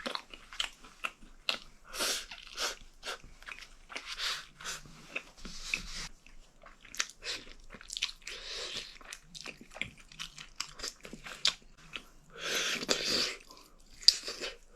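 A person eating close to the microphone: irregular biting and chewing of takeout braised chicken pieces with rice, many short clicks and mouth noises.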